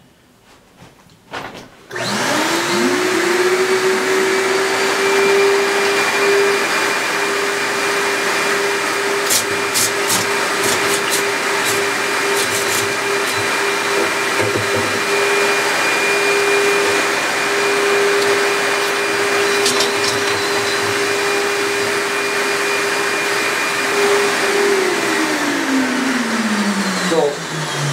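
Three-motor HEPA shop vacuum switching on about two seconds in, its motors winding up one after another in rising whines, then running steadily with a strong hum and rushing air, and winding down in a falling whine near the end. A few sharp ticks sound in the middle.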